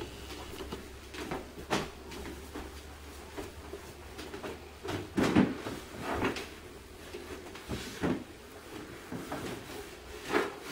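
Scattered light knocks and thumps, about half a dozen spread irregularly, from a toddler moving about and handling toys and a plastic toy kitchen; the loudest comes about five seconds in.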